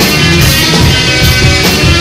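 Live rock band playing loudly: electric guitar over bass and drums, with a steady cymbal beat.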